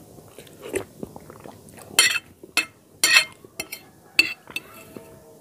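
Spoon clinking and scraping against a white bowl of soup while eating, with a run of sharp clinks in the middle, some ringing briefly.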